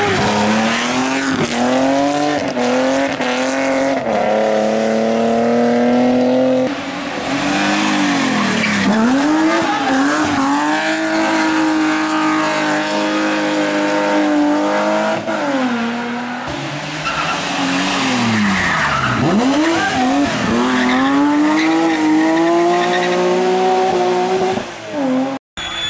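BMW 3 Series rally cars driven flat out through bends: the engines rev high, drop and climb again over and over through gear changes and lifts, with tyres squealing as the cars slide sideways. The sound cuts out for a moment near the end.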